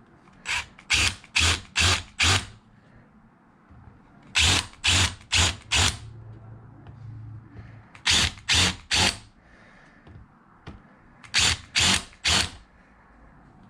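Power drill countersinking screw holes, run in quick trigger pulses: four sets of three to five short bursts, about two a second, with pauses between sets.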